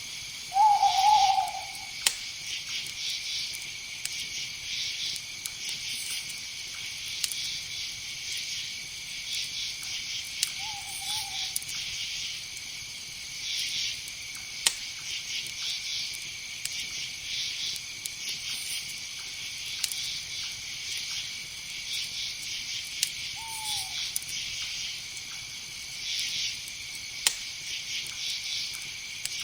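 Night insect chorus of crickets, a steady shrill pulsing. Three short hooting calls from a night bird, owl-like, rise above it: a loud one just after the start, a fainter one about ten seconds later and a falling one near two-thirds through. A few sharp faint clicks are scattered among them.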